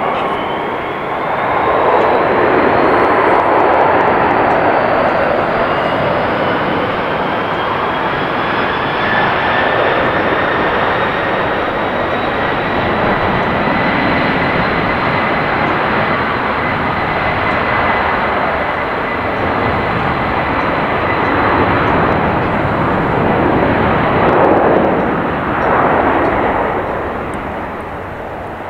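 Airbus A300F4-622R freighter's twin Pratt & Whitney PW4158 turbofans on the takeoff roll: a loud jet noise with a whine that rises in pitch as the engines spool up to takeoff thrust, then holds steady at full power, the noise easing slightly near the end as the aircraft rotates away.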